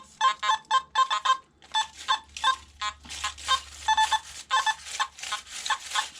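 Metal detector giving rapid, irregular short beeps at a couple of slightly different pitches as it is swept over trash-filled ground.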